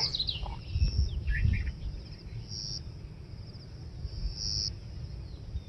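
Insects trilling steadily in a high-pitched band, swelling louder for a moment about every two seconds. A few bird chirps come about a second and a half in, over a low rumble that is heaviest in the first two seconds.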